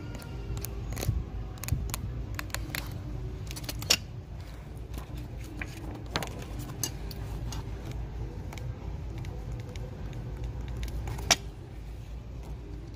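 Hands handling and leafing through scrapbook paper pads on a store shelf: light clicks, taps and rustles of paper sheets, with a sharper tap about four seconds in and another near eleven seconds, over a low steady rumble.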